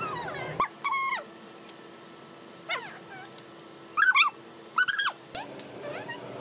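A cat meowing: about five short, high-pitched mews whose pitch falls or wavers, the loudest two about four and five seconds in.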